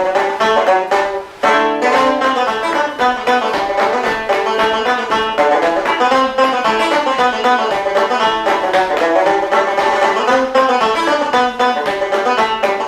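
Background music: a quick tune of rapidly picked string notes, with a brief break about a second and a half in.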